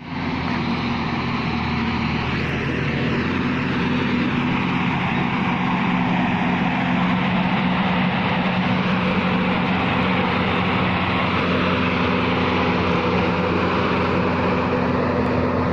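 Engine of heavy machinery running steadily, a constant low drone.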